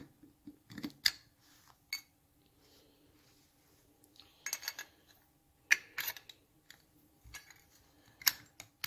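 Small metal parts and hand tools clicking and clinking irregularly while a rocker arm and washer are worked into a Triumph rocker box, with a few sharper, louder clinks.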